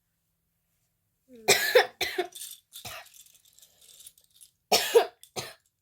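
A person coughing: a run of a few coughs starting about a second and a half in, then two more near the end.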